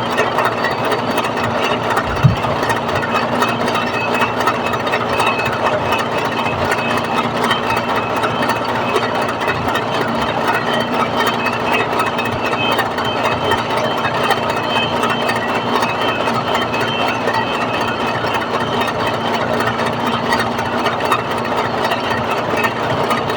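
A motor-driven machine running steadily: a constant hum with a dense noise over it and no change in speed. A single low knock sounds about two seconds in.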